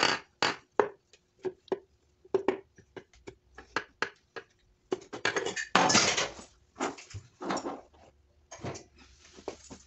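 Irregular metallic clicks and knocks from a Honda D16Y7 engine's crankshaft and bearing parts being handled by hand in the torn-down block, with a louder, longer clatter about six seconds in.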